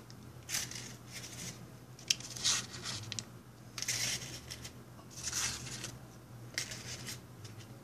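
Short, scattered rustles and light handling noises as cupcakes in paper liners are moved onto a plate, about half a dozen brief bursts.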